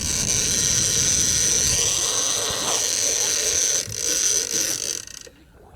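Fishing reel's ratchet running as a fast, steady buzz of clicks while a hooked shark is fought, stopping about five seconds in.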